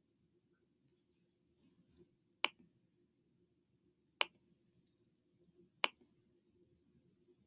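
Three sharp clicks, about a second and a half to two seconds apart, with a fainter one between the first two, over faint room tone.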